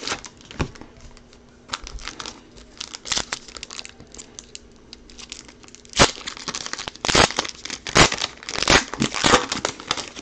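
Foil wrapper of a 2020 Optic baseball card pack being torn open and crinkled by hand: irregular crackles and rips, sparse at first and busier in the second half.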